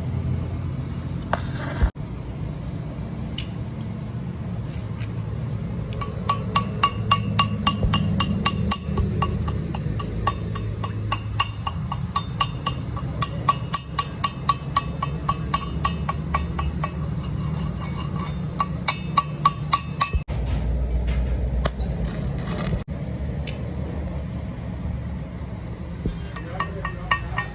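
Hammer blows on steel, a quick even series of sharp strikes at about three to four a second, each ringing at the same pitches, pausing for several seconds before starting again near the end. A steady low machine hum runs underneath.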